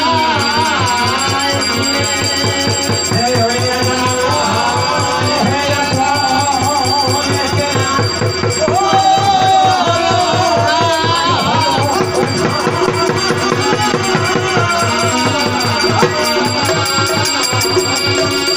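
Live Bengali folk-song accompaniment: a steady, fast drum beat under a wavering melody line.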